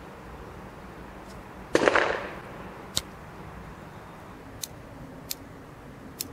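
A paper cartridge being rammed into the chamber of an 1863 Remington New Model Army revolver with its loading lever: a short, loud crunch about two seconds in as the rammer presses the bullet home. Then a single sharp metallic click, and a few more clicks spaced under a second apart near the end as the cylinder is turned by hand.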